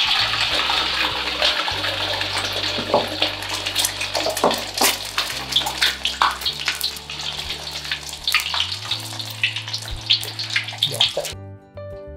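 Egg frying in hot oil in a wok: a loud steady sizzle with frequent crackles and spits of oil, starting as the egg drops in and cutting off suddenly near the end.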